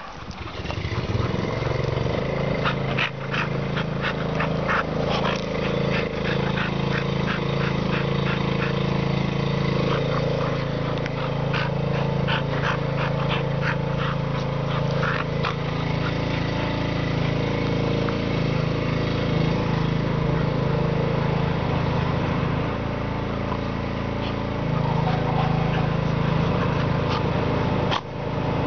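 An engine running steadily with an even low hum, dropping away briefly near the end, with light clicks over it in the first half.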